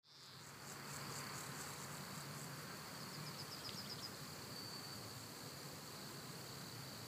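Quiet outdoor ambience that cuts in abruptly: a steady high-pitched insect drone, with a short run of fast chirps about three seconds in, over a faint low hum.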